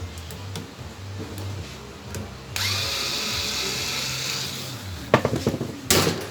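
Power drill running for about two seconds as an electric fan is dismantled, then a quick run of sharp clicks and knocks near the end.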